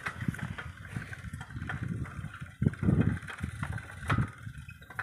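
Bicycle riding over a rough dirt path with roots, the frame and wheels rattling and knocking over irregular bumps, with wind buffeting the microphone. The heaviest knocks come about three seconds in and again about a second later.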